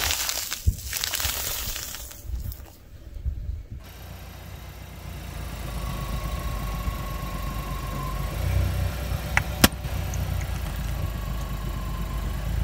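A car tyre crushing a plastic bag of small coloured pieces with a crackling crunch for the first few seconds. Then a car engine runs low and steady as the tyre slowly rolls onto a squishy toy, with one sharp snap about ten seconds in.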